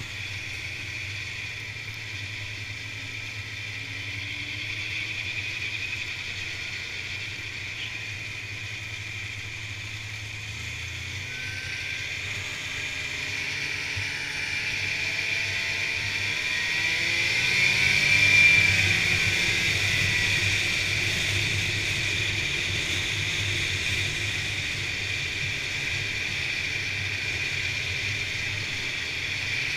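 Polaris Indy snowmobile's two-stroke engine running under way. It revs up to a peak about two-thirds of the way through, then eases back to a steady cruise.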